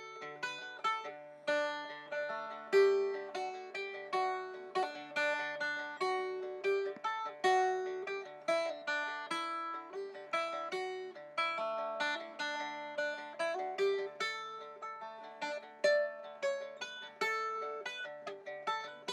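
Longneck dulcimer music: a plucked melody over steady low drone notes.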